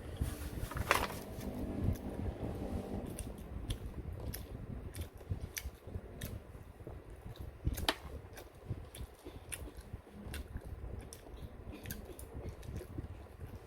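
Mukbang eating sounds: small clicks of utensils against a bowl and wet chewing of rabokki, with one louder click about eight seconds in.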